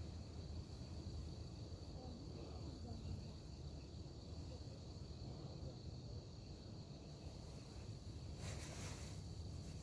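Faint, steady insect trill over a low steady rumble, with one short hiss about eight and a half seconds in.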